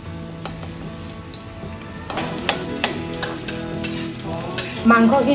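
Sliced onions frying in hot oil in a kadai. The sizzle is faint at first and grows louder about two seconds in, with repeated clanks of a metal spoon against the pan as the onions are stirred.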